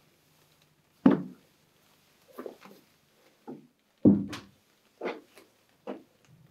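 A series of about seven separate wooden knocks and thuds from objects being handled and set down on a wooden workbench. The two loudest come about a second in and about four seconds in.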